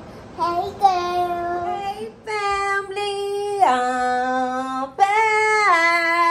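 Singing: a voice holds long notes with short breaks between them, dropping to one lower note about four seconds in and then rising again.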